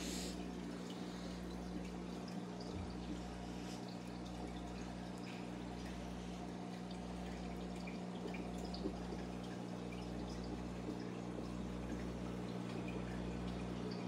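Aquarium pump or filter running with a steady low hum that throbs about every second and a half, with light dripping and trickling water over it.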